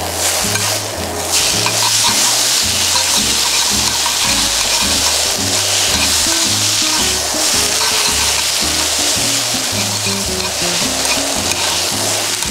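Yakisoba noodles and bean sprouts sizzling in a hot non-stick frying pan as they are stirred and tossed with chopsticks. The sizzle grows louder about a second in and then holds steady.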